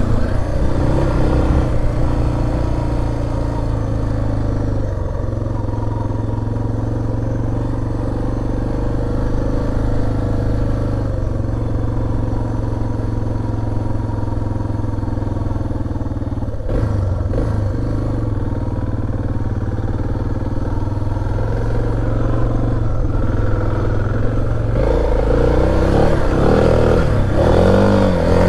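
Suzuki DR650's single-cylinder four-stroke engine running under way at a steady pace, with a short break in the note about 17 seconds in and the revs rising and falling near the end.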